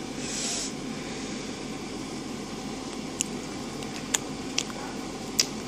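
Steady room hiss and hum, with a short breathy hiss at the start and four faint, sharp clicks in the second half.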